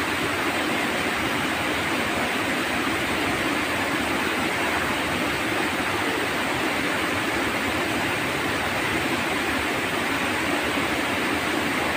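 Fast-flowing stream rushing past, a steady, unbroken rush of water.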